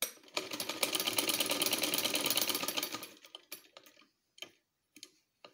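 Vintage sewing machine stitching at speed, a rapid run of stitch clicks for about three seconds as it sews a neckband onto a shirt's neckline, then slowing and stopping. A few separate clicks follow.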